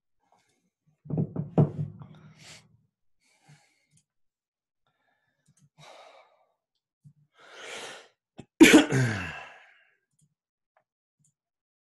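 A man makes a short, low throaty sound about a second in, then breathes in and lets out a loud sigh that falls in pitch.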